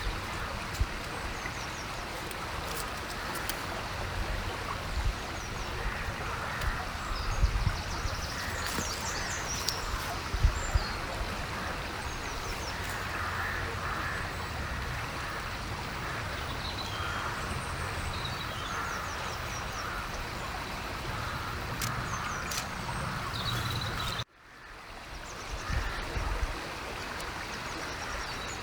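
River water running steadily, with small birds chirping briefly several times over it. About three-quarters of the way through, the sound cuts out abruptly and then fades back in.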